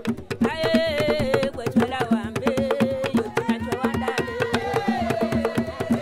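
Intro theme music: fast, busy percussion with a repeated low note under a wavering melody line.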